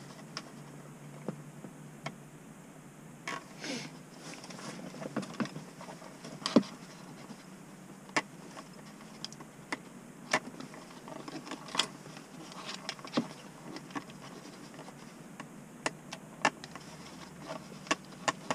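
Light, scattered clicks and rustles of hands handling thin gauge wiring, connectors and a plastic gauge pod, with one sharper click about six and a half seconds in, over a faint steady low hum.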